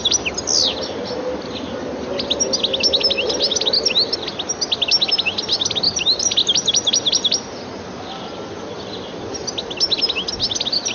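European goldfinch singing: a rapid twitter of short, high, quick notes in long runs, breaking off for about two seconds a little past the middle before starting again.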